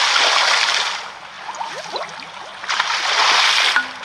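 Cartoon splash sound effects: water rushing and spraying up loudly for about the first second, a quieter gurgling stretch, then a second burst of spraying water that cuts off shortly before the end.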